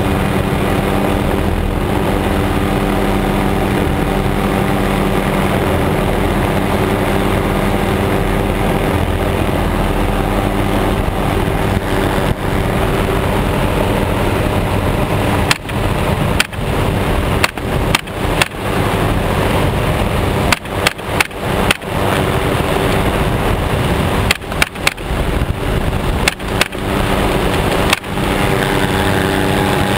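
Helicopter engine and rotor running steadily. From about halfway, an AR-15 pistol fires about seventeen rapid single shots in quick strings, each sharp crack followed by a brief dip in the cabin noise.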